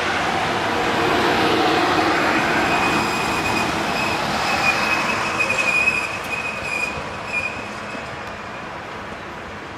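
A passenger train hauled by two Class 5E1 electric locomotives rolling slowly past, its steel wheels rumbling on the rails. A thin, steady high squeal sounds from about two seconds in until about eight seconds in. The sound fades as the train moves away.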